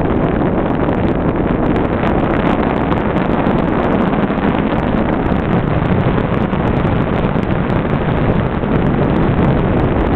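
Steady, loud rush of wind buffeting the microphone in flight under a paraglider.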